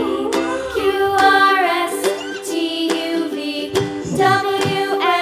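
Background music: a song with a voice singing a melody over instrumental accompaniment and a steady beat.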